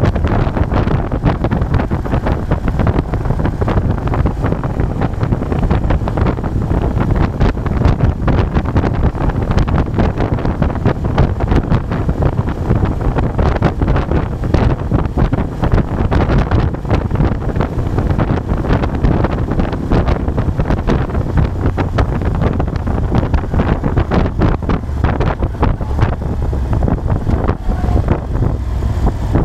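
Wind buffeting the microphone on a moving motorcycle, with the Moto Guzzi Bellagio's V-twin engine running steadily underneath at cruising speed.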